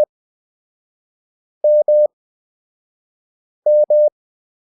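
Morse code practice tone, a steady mid-pitched beep keyed at 20 WPM character speed with Farnsworth spacing. A dash ends right at the start, then two letters M (dah-dah, two long beeps each) follow about two seconds apart.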